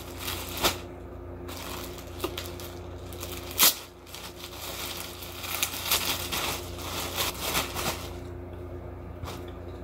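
Thin plastic polybag crinkling and crackling as pajama joggers are handled and pulled out of it, with scattered sharp crackles, the loudest about three and a half seconds in; it settles down near the end.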